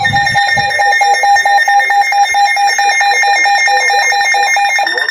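Emergency Alert System attention signal on FM radio: a loud, steady, harsh two-tone alarm that cuts off near the end, announcing a severe thunderstorm warning.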